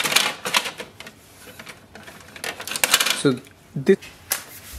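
Plastic clicks and rattles from the paper cassette of an Epson WorkForce Pro WF-4830 as its blue paper edge guide is slid and adjusted, in several short clusters of clicks.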